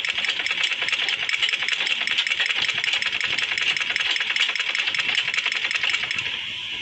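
Sewing machine running at a fast steady pace, its needle stitching through cloth in a rapid even ticking rhythm, then stopping about six seconds in.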